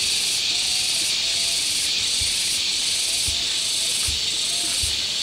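Loud steady insect chorus: a high, hissing buzz that pulses a little faster than once a second. A few soft low thuds sound under it in the second half.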